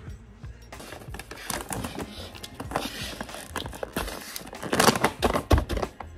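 Stiff plastic stand-up pouch crinkling and rustling as it is handled and opened, with a burst of louder, sharper crackles near the end.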